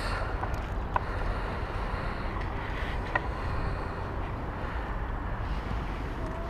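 Steady low rumble of outdoor background noise, with two faint short clicks about one and three seconds in.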